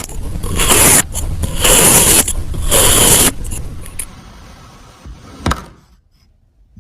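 Kinetic sand being sliced and scraped with a tool: about three gritty scraping strokes, then quieter handling, and one short sharp click about five and a half seconds in.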